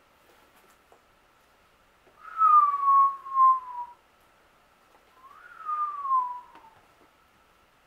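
A man whistling two long falling notes, one about two seconds in and another about five seconds in, each gliding down in pitch.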